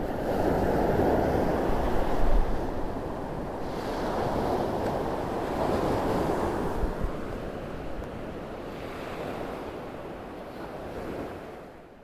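Sea waves washing onto a shore, the surf swelling and easing every few seconds, with a low wind rumble on the microphone; the sound fades out near the end.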